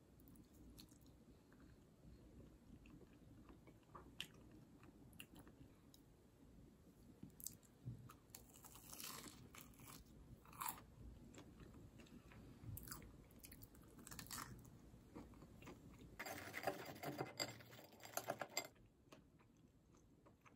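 Quiet eating sounds: crunching and chewing of fried, breadcrumb-coated croquettes and sugared doughnuts, with scattered small clicks. Near the end, a knife saws through a crisp croquette crust in a dense burst of crackling.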